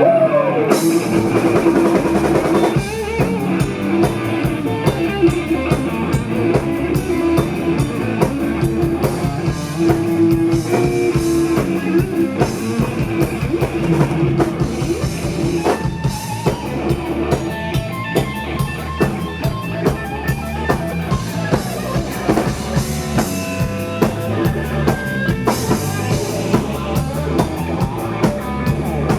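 Live band playing an instrumental passage: electric guitar over a steady drum kit beat.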